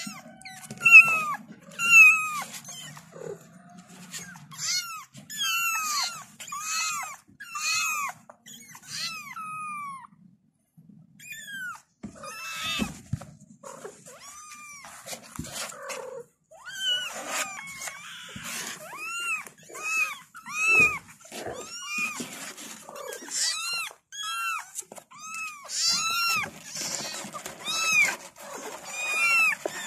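Young kittens meowing over and over, calling for their mother. The cries are high and rise and fall, come about one a second with a pause of about two seconds near the middle, and a rustling noise runs under them near the end.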